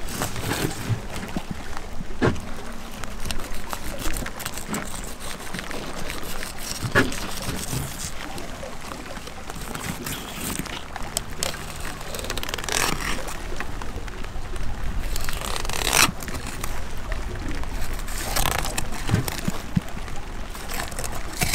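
Long fillet knife cutting and scraping along a silver salmon's backbone and ribs, with scattered clicks and handling noises and a few louder scraping strokes.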